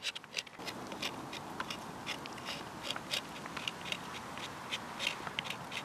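Knife blade scraping the resinous underlayer of silver birch bark in short, irregular strokes, about two or three a second, shaving off fine dust for a fire-lighting dust pile.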